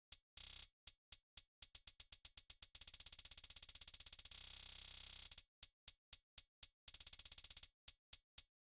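Electronic hi-hat sample repeated as a note-repeat roll from a held drum pad. It starts at about three hits a second, speeds up into a rapid roll a few seconds in, slows down, then speeds up again briefly and eases off as the modulation strip changes the roll rate.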